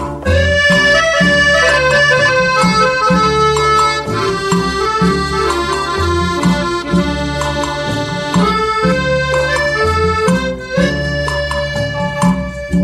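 Instrumental introduction of a Thai luk thung song: a lead melody of held notes over a steady bass and drum beat, with no singing yet.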